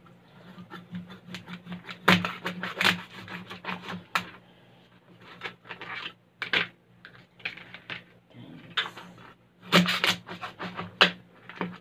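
A cleaver chopping and knocking through raw crab shell on a plastic plate, with cracking and scraping as the shell is broken and pulled apart by hand. Irregular sharp clicks and knocks, heaviest about two seconds in and again near the end.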